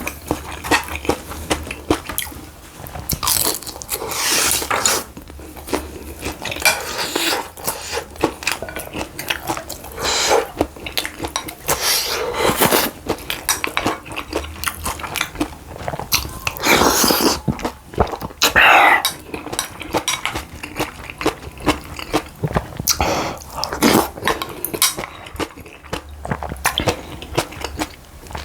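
Close-miked eating: chewing and biting food, with crunchy bites and many short wet clicks throughout.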